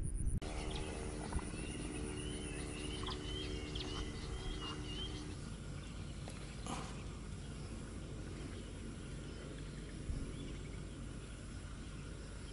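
Outdoor ambience with an animal calling in the first few seconds: a low drawn-out call with a higher warbling call over it. A single short sharp sound comes about seven seconds in.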